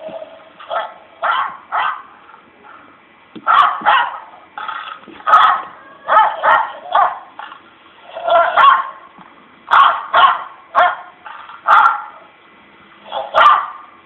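A dog barking over and over: more than a dozen short, sharp barks in uneven clusters, loud and close.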